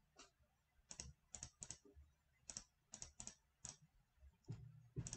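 Faint computer mouse clicks: about a dozen short, irregular clicks, several in close pairs, as numbers are entered on an on-screen calculator.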